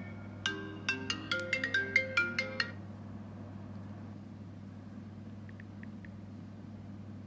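iPhone incoming-call ringtone: a quick marimba-like phrase of bright notes that stops about three seconds in. A few faint short clicks follow near the end as the passcode is tapped in on the iPhone keypad.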